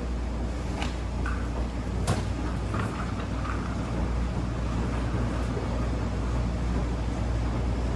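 Wascomat Senior W125 35-pound washer-extractor running with a steady low hum, with a couple of light clicks about one and two seconds in.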